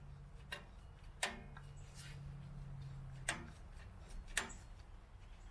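A handful of faint, irregular metallic clicks, about five over the few seconds, as a screwdriver works the star-wheel adjuster of a drum brake through the backing-plate access hole.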